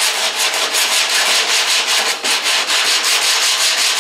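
Sandpaper on a hand sanding block rubbing over cured Bondo body filler on a car's quarter panel, in quick, even back-and-forth strokes, with a brief pause about halfway through. This is the block-sanding that feathers the filler's edge out into the panel.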